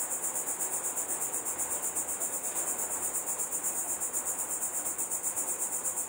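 Chorus of cicadas buzzing: a high-pitched, continuous drone that pulses evenly at about seven beats a second.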